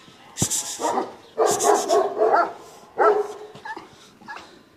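Kangal puppies barking and yelping at play, a run of barks in the first three and a half seconds that dies away near the end.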